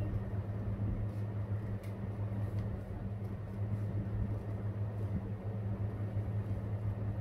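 A steady low hum fills the room, with a few faint snips of scissors cutting a paper feather shape.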